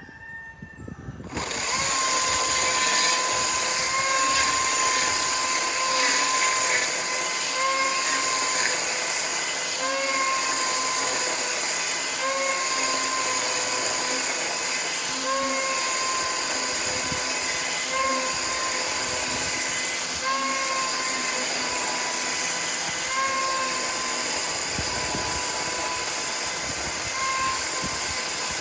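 Battery-powered chainsaw ripping lengthwise through a wooden utility pole, starting about a second in and running steadily under load, its whine dipping slightly every few seconds.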